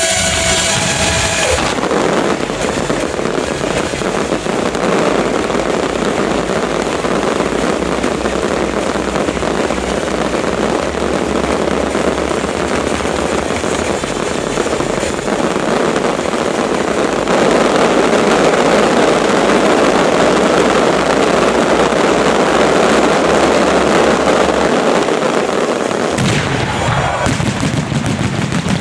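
Fireworks display barrage: a dense, continuous rattle of rapid-fire reports and crackling from many shells going off together. It gets louder a bit past halfway.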